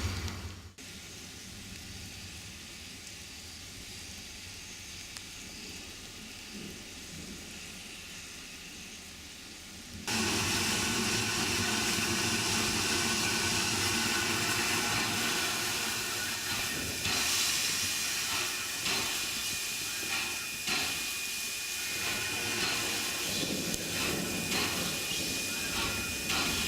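Alco 2-8-0 Consolidation steam locomotive venting steam with a steady hiss, which jumps abruptly to a much louder, fuller hiss about ten seconds in and holds there.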